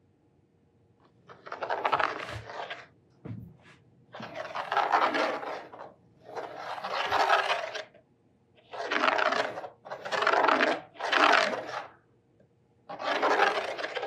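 Large compass with an extension bar being swung around its centre point on a plywood blank, its tip scraping arcs of a circle into the wood in about seven strokes of a second or so each.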